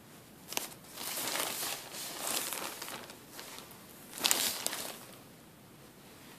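Close-miked crinkling of cotton balls and their plastic bag being handled: a short click about half a second in, about two seconds of crinkling, then a louder crinkle just past four seconds.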